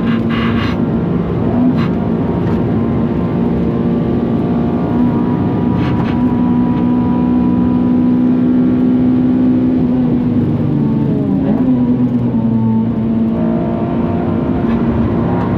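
Honda Civic FN2 Type R's 2.0-litre K20 four-cylinder engine running hard at high revs, heard from inside the car, holding a steady pitch for several seconds before brief drops and climbs in pitch from gear changes near the end.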